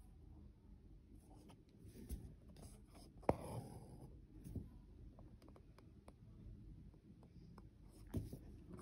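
Embroidery needle piercing linen stretched taut in a hoop and three-strand embroidery floss drawn through it: faint scratchy rasping with several sharp little pops, the loudest about three seconds in.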